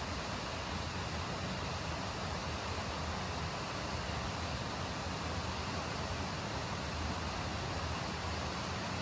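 Steady, even hiss with no separate events in it.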